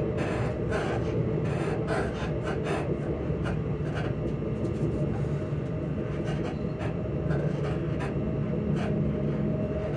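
Class 334 electric multiple unit's traction motors humming steadily under a running rumble, with a higher tone above the low hum, heard from inside the train as it slows towards a station. Short knocks and rattles come through all along.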